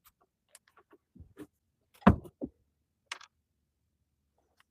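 Hard small parts being handled and set down: scattered light clicks and taps, with one loud knock about two seconds in, a second, softer knock just after it, and a sharp click about a second later.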